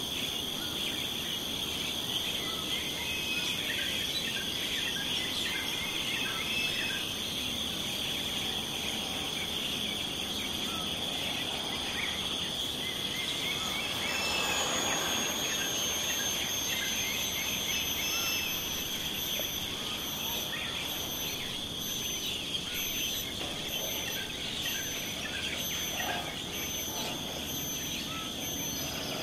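Outdoor soundscape of a steady high insect drone with scattered short bird chirps over it. A broad swell of noise rises and fades about midway.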